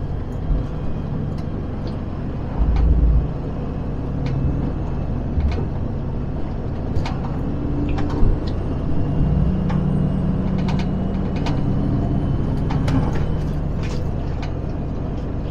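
Mercedes-Benz Actros lorry's diesel engine running under way, heard from inside the cab with road noise. There is a steady low hum, a heavier low thump about three seconds in, and scattered light clicks and rattles from the cab.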